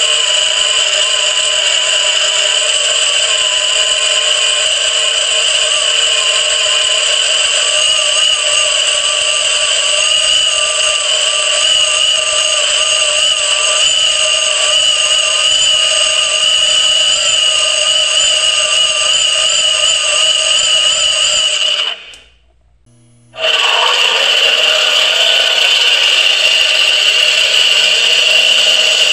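Motor-driven 3D-printed plastic gear train spinning at high speed in a water-filled housing, a loud, steady, high-pitched multi-tone whine. It cuts off abruptly about three-quarters of the way through and comes back a second and a half later.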